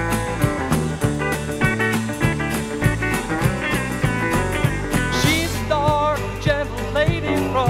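Background music from a ballad with a steady beat, in a gap between sung lines. A wavering melody line comes in about two-thirds of the way through.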